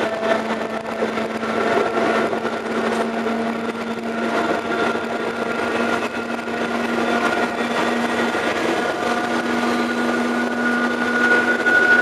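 A Northern Ireland Railways diesel train heard from an open window while it is moving. There is a steady engine drone with rushing wind and wheel-on-rail noise, and the pitch edges up slightly near the end.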